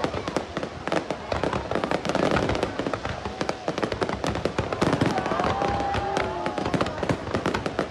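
Aerial fireworks display: shells bursting overhead in a rapid, unbroken run of bangs, pops and crackles.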